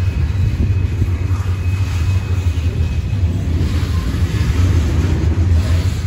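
Norfolk Southern open-top hopper cars of a freight train rolling past: a loud, steady low rumble of steel wheels on the rails.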